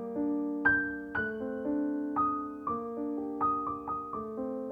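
Background music: solo piano playing a melody, with notes struck about every half second and each ringing out and fading.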